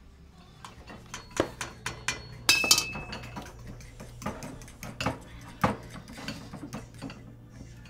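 A metal spoon clinks and scrapes against a ceramic bowl as something is stirred, amid scattered kitchen clatter of dishes. A louder, briefly ringing clink comes about two and a half seconds in.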